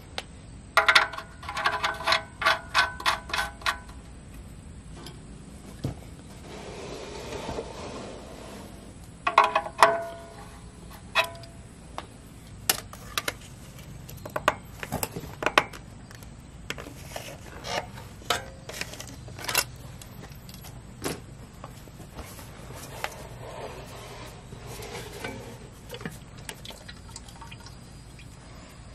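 Old engine oil from a Ford 3000 tractor draining into a plastic drain pan. A quick run of ringing metal clinks comes in the first few seconds and another about ten seconds in. Scattered sharp clicks and scrapes follow as the spin-on oil filter is turned off by hand.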